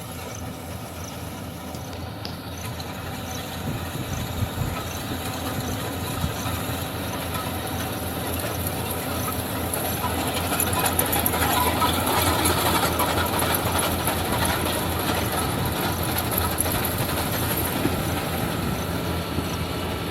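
Yanmar 70GV rice combine harvester running, a steady engine note with mechanical rattling from its machinery. It grows louder about halfway through.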